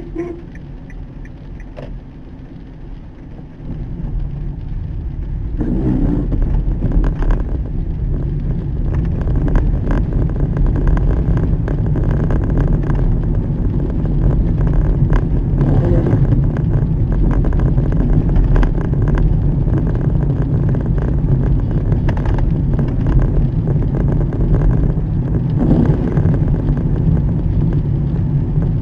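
Car driving on a wet road, heard from inside the cabin: a steady mix of engine and tyre noise that grows louder about four seconds in and then holds even.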